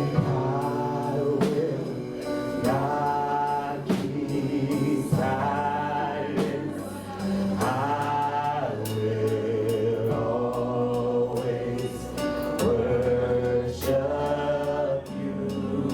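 Live gospel worship music: voices singing drawn-out notes over sustained keyboard or bass chords, with a drum kit keeping time.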